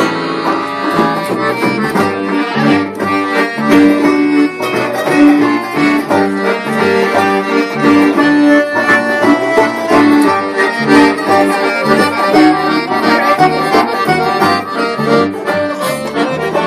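Live band playing an instrumental passage led by an accordion playing the melody.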